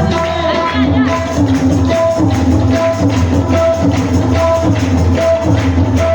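Music with a steady beat: evenly repeating percussion hits over a steady bass line, with a short note recurring.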